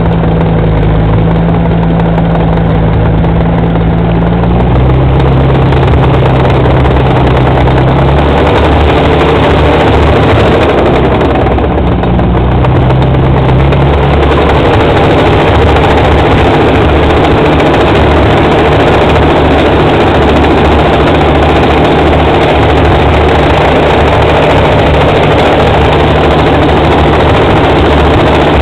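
Bulldozer's diesel engine running loud and steady. Its note steps down about four seconds in and shifts a few more times as the revs change, then holds steady.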